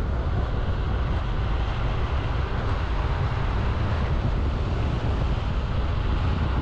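Steady rush of wind buffeting a chin-mounted helmet camera's microphone on an electric scooter ridden at high speed, a dense low rumble with hiss above it.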